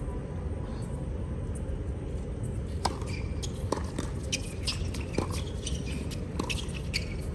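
Tennis ball struck back and forth by racquets in a doubles rally on a hard court: sharp pops about a second apart, beginning about three seconds in. Between the shots, sneakers squeak on the court.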